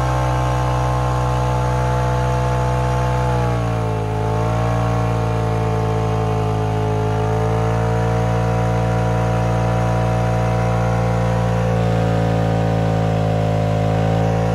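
Polaris RZR Turbo's turbocharged twin-cylinder engine held at high revs in a stationary burnout, its rear tires spinning in place and smoking. The revs dip briefly about four seconds in, then hold steady.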